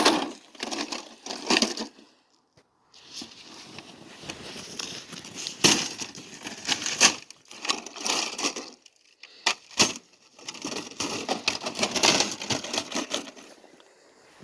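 Handling noises of parts being worked into place: irregular rustling and crackling with scattered knocks and scrapes, pausing briefly about two seconds in.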